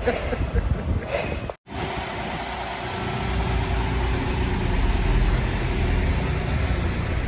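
Semi-truck diesel engine idling: a steady low rumble with a faint steady hum over it. The sound cuts out briefly about a second and a half in, then the idle carries on.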